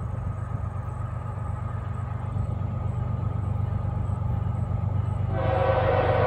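Approaching diesel locomotive, a steady low rumble, until about five seconds in its air horn starts blowing, a loud held chord of steady tones.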